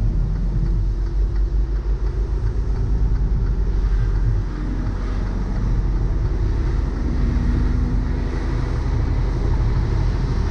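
Steady low rumble of a truck's engine and tyre noise on a wet highway, heard from inside the cab.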